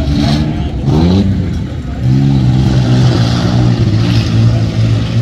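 Truck engine in a Tuff Trucks obstacle-course run, revving hard: the pitch dips, climbs sharply about a second in, then holds steady at high revs.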